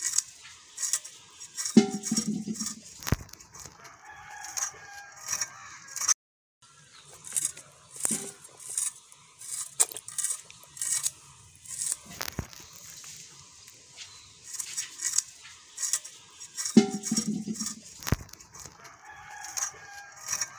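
Fish scales being scraped off against a boti blade: rapid, irregular scratchy strokes. A chicken calls in the background about two seconds in and again near the end.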